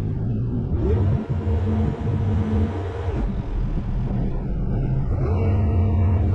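Engine of earthmoving equipment running under load, revving up about a second in, dropping back near the middle and revving up again.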